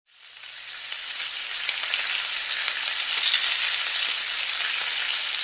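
Beetroot stir-fry sizzling in a frying pan on the stove: a steady frying hiss that fades in over the first second or two.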